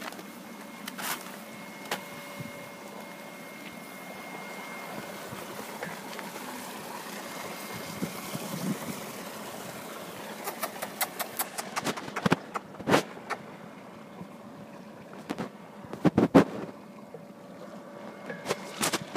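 Water running steadily in an aquaponics fish tank, with a faint steady tone under it. Scattered sharp clicks and knocks come in clusters, the loudest about sixteen seconds in.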